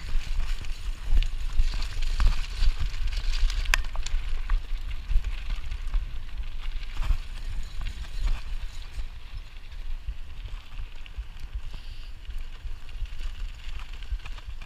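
Mountain bike ridden fast over gravel and dirt: a steady crunching hiss from the tyres with scattered clicks and knocks from the bike over bumps. Wind buffets the microphone with a heavy rumble.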